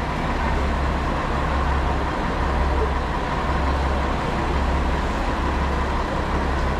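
KiHa 47 diesel railcar standing with its engine idling: a steady low rumble, with a faint steady whine above it.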